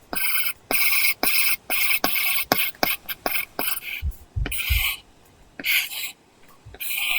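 Apple Pencil drawing on an iPad Pro with a paper-texture screen protector: short scratchy strokes, each starting with a sharp tap of the tip, several a second. A few dull low thumps come about four to five seconds in, and more strokes follow near the end.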